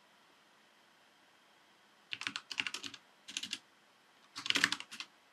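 Typing on a computer keyboard: quick runs of key clicks in three short bursts, starting about two seconds in, the last burst the loudest.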